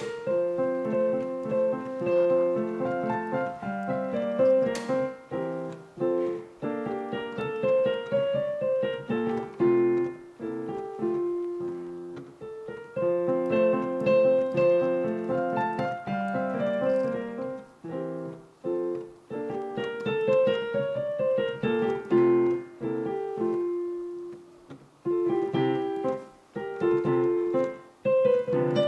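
Piano being played: a melody of separate notes over chords, its opening phrase coming back about halfway through.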